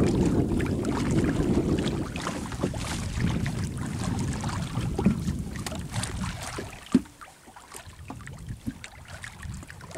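Wind buffeting the microphone and water washing against the hull of a small wooden boat at sea, loudest in the first couple of seconds and dying down after about six seconds. A few sharp knocks, one standing out about seven seconds in.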